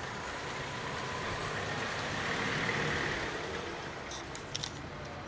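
Street traffic: a vehicle going by, its noise swelling to a peak about halfway through and then fading. A few faint clicks near the end.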